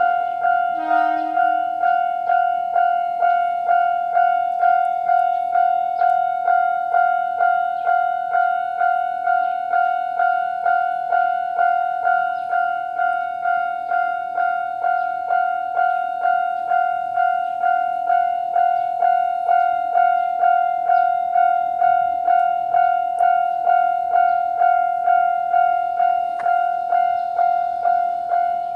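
Japanese railway level crossing's electronic warning bell ringing at its normal sound, a single fixed-pitch ding repeated evenly about twice a second.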